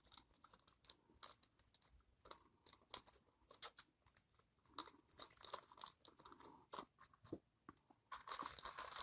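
Faint crinkling and rustling of packaging being handled, in scattered small crackles that grow denser near the end.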